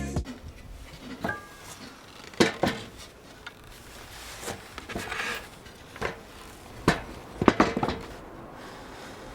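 Irregular metallic clinks and knocks, about ten sharp taps, from hand tools and metal parts being handled and set down. A cluster of taps comes about seven and a half seconds in.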